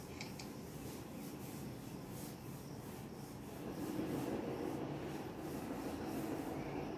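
Faint scratchy rubbing and rustling noise over a low rumble that grows louder about three and a half seconds in.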